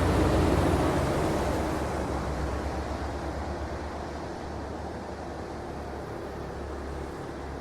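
A vehicle passes close by and fades away over a few seconds, leaving a steady hum of street noise.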